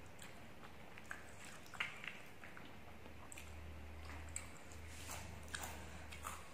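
Quiet eating sounds: faint chewing and scattered small clicks of fingers and a fork picking at chicken and fried noodles, over a low steady hum.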